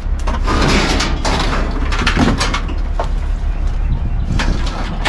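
Scrap metal being pulled off the load and dropped into a steel roll-off dumpster: a series of irregular clanks, knocks and scrapes over a steady low rumble.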